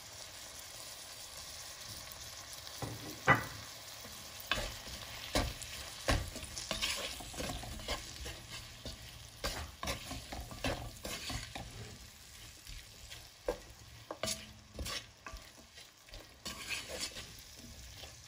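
Chopped onion and tomato sizzling steadily in oil with ground spices. A wooden spoon stirs them, giving irregular knocks and scrapes against the pot, the sharpest about three seconds in.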